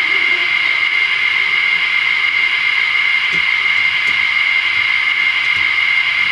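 A steady, loud hiss with a constant high whine running through it, and a faint tick or two about three to four seconds in.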